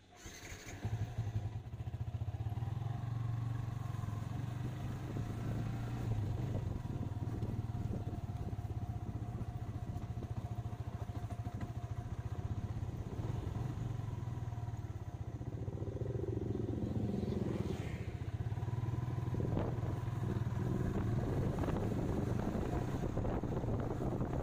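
Motorcycle engine running as the bike pulls away and rides along, its low steady note coming in about half a second in. Wind noise on the microphone builds in the second half as the bike picks up speed.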